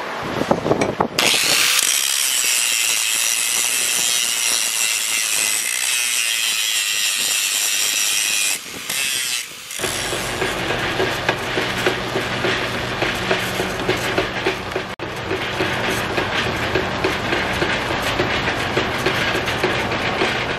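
Angle grinder with a cut-off disc grinding a steel block: a steady, high-pitched screech that stops about eight and a half seconds in. Then, from about ten seconds in, a drill press runs with a twist bit boring through a steel plate: a steady motor hum with the scrape of the cutting bit.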